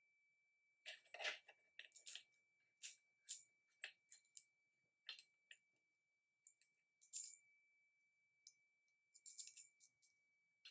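Small metal clamp parts and tools clicking and clinking as they are handled, a scattered series of light sharp taps, the loudest about seven seconds in, over a faint steady high-pitched tone.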